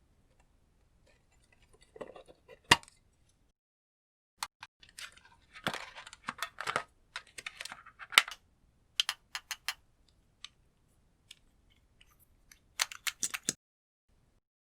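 Slime being squished and stretched by hand, making irregular sticky clicks and crackling pops in short clusters with pauses between.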